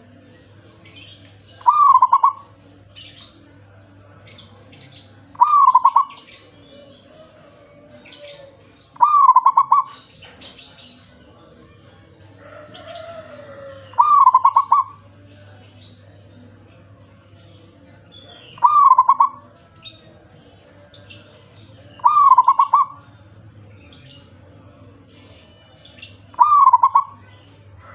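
Zebra dove (perkutut) cooing: seven short phrases of rapid staccato coo notes, a few seconds apart. Small birds chirp faintly between the phrases over a low steady hum.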